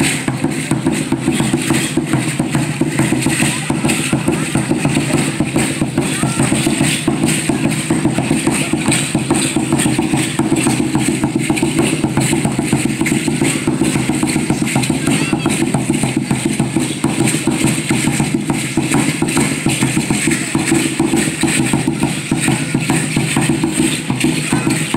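Steady, continuous drumming that accompanies an Aztec (Mexica) ceremonial dance.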